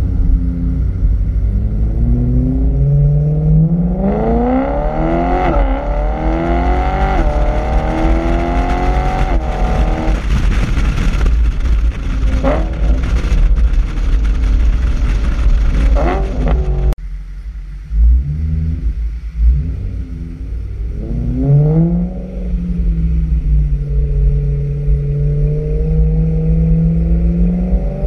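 BMW E92 M3's 4.0-litre V8 through a HE'ART aftermarket exhaust system, revving hard. Its pitch climbs in several sweeps that drop back at each upshift, then gives way to loud rushing noise with a few sharp cracks. After a sudden cut, the engine runs lower and steadier, and near the end its pitch climbs again as it accelerates.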